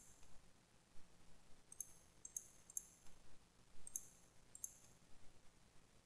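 Faint computer mouse button clicks, about six of them, most in a quick run between about two and five seconds in.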